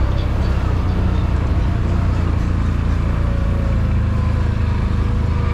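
CFMoto CForce 1000 ATV's engine running steadily under way, a constant low drone.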